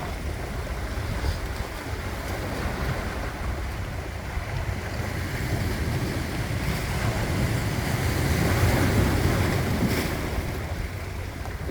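Sea waves washing ashore in a steady surf wash that swells louder about eight seconds in, then eases.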